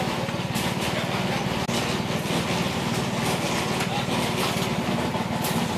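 A small engine running steadily, with a fast even pulsing.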